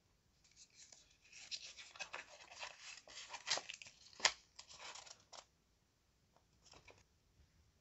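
Paper card crinkling and rustling as it is handled, a dense crackle lasting about five seconds with one sharper click about four seconds in, then a brief rustle near the end.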